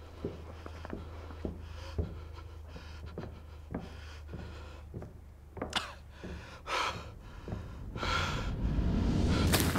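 A frightened man panting and gasping, the breaths loudest a little past halfway, over a low steady hum and soft knocks about twice a second. A rushing noise swells near the end.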